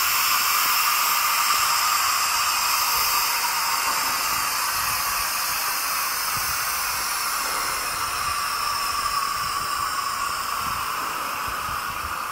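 Air brakes on a freight train of Taki 1000 tank cars releasing: a steady hiss of escaping air that slowly gets quieter.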